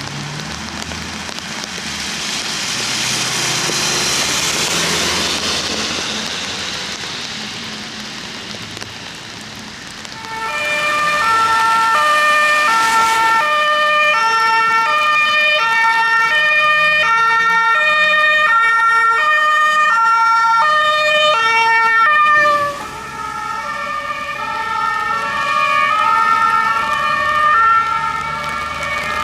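Tyres hissing on a wet road as vehicles pass, swelling about 4 seconds in. About 10 seconds in, a German two-tone emergency-vehicle siren (Martinshorn) starts, stepping evenly back and forth between a high and a low tone. Near the end it drops suddenly in loudness and carries on at shifted pitches.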